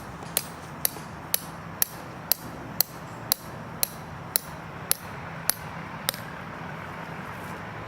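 A hammer or mallet driving a stake into the ground for pitching a canvas tent. It lands about thirteen sharp, even blows, about two a second, then stops about six seconds in.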